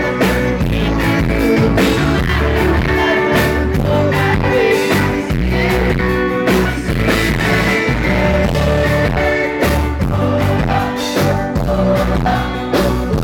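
Live pop-punk band playing loud through the venue PA: electric guitars, bass and pounding drums under a lead vocal, recorded close to the stage.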